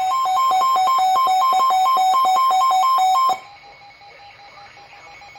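Weather radio receiver's alert alarm, set off by a severe thunderstorm warning: loud electronic beeping that alternates rapidly between a high and a low tone. It cuts off suddenly about three seconds in, leaving a faint tone and radio hiss.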